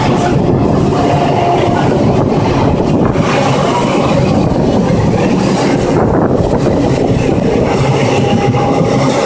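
An Indian Railways express train of blue passenger coaches passing through a station platform at speed, close by. The wheels on the rails make a loud, steady rumble and rattle.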